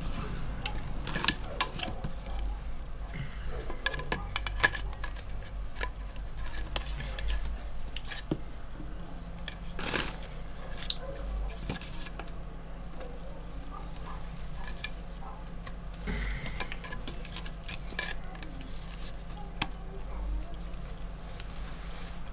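Plastic hula hoop tube sections being pushed together and handled: scattered clicks and knocks of hollow plastic, over a low steady hum.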